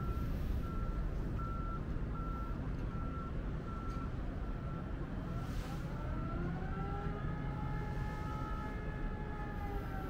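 A vehicle reversing alarm beeping steadily, about one and a half beeps a second, over a low engine rumble. About halfway through, a machine whine rises in pitch and holds.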